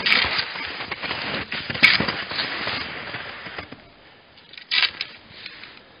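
Skis crunching and scraping through snow, a dense crackle that is loudest for the first three seconds and then fades, with one short, sharper scrape near the end.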